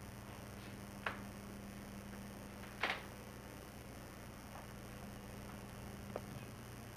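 Quiet indoor room tone with a steady low electrical hum, broken by three short clicks about a second in, near three seconds (the loudest) and near six seconds.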